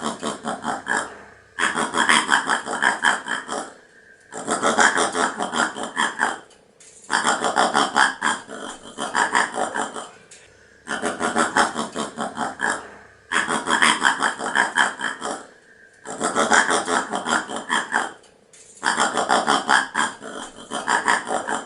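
Paca calling: a series of bursts, each about two seconds of rapid pulses, with short pauses between them.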